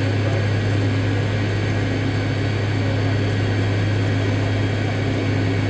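Inside the cabin of an MD-83 airliner taxiing: the rear-mounted Pratt & Whitney JT8D turbofans run at low power as a steady low hum, with a broad rush of noise above it.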